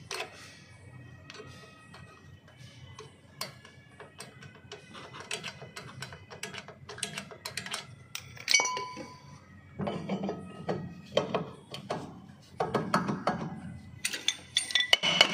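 Metal clicks and taps from handling the shoes, springs and parts of a Honda Amaze rear drum brake, with one ringing metal clink about halfway through. Rougher scraping and knocking in the last few seconds come from the brake drum being pushed back on over the shoes.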